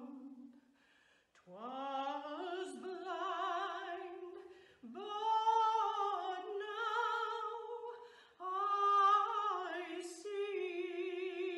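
A woman singing solo, unaccompanied, with strong vibrato, in long held phrases separated by short breaths.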